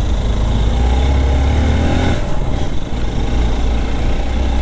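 Hero XPulse 200 4V single-cylinder motorcycle engine running through a loud Norifumi aftermarket exhaust: a steady low drone, with the engine note climbing briefly about two seconds in.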